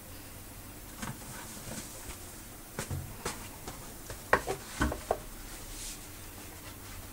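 Laundry basket knocking and scraping against a tiled floor as it is handled and tipped over, a string of irregular short knocks, the loudest cluster past the middle.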